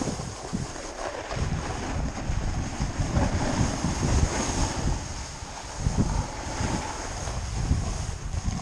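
Wind buffeting the microphone in uneven gusts over a steady rushing hiss.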